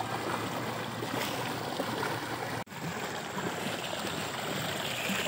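Muddy water of a small stream rushing steadily over a low drop, with a brief break a little past halfway.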